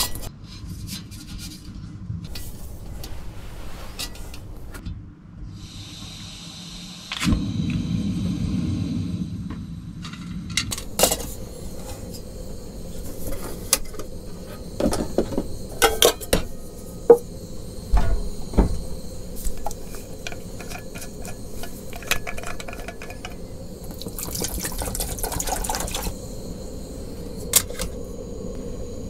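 Aluminium pans of a Trangia spirit-stove cookset being handled and set out, with scattered clinks and knocks. About a quarter of the way in, liquid is poured into a pot for a few seconds.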